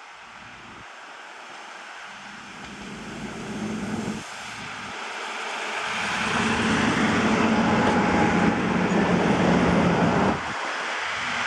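DB Class 642 (Siemens Desiro Classic) diesel multiple unit pulling into the station. Its diesel engine and running noise grow steadily louder as it comes in and passes close by, then fall away sharply near the end.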